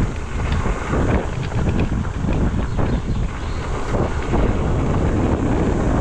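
Wind buffeting the microphone over a steady rough rumble of tyres rolling across a gravel road, with uneven crunches and bumps throughout.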